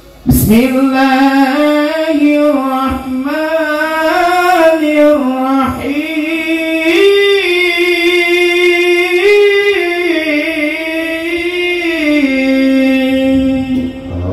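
A man's voice chanting through a microphone in the melodic style of Quran recitation: long held notes with wavering, ornamented turns, starting abruptly and running unbroken for some thirteen seconds.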